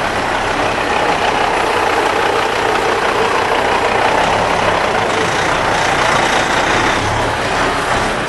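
Diesel engine of a large American-style semi tractor running steadily as the truck drives slowly past at close range.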